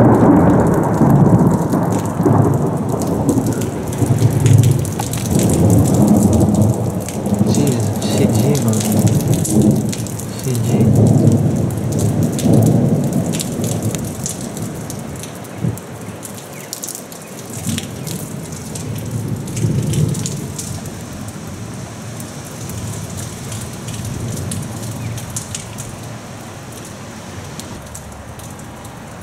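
Thunder from a cloud-to-ground lightning strike rolling in several loud rumbling swells for about a dozen seconds, then dying away, with a last smaller rumble about twenty seconds in. Rain falls steadily throughout.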